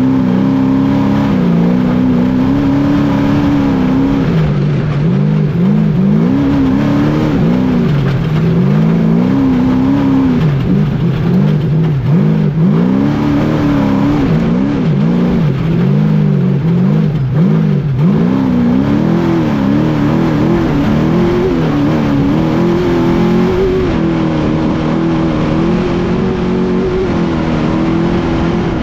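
Off-road trophy truck engine revving hard at racing speed, its pitch climbing and dropping again and again as the throttle is worked over the terrain, over a constant rush of wind and road noise.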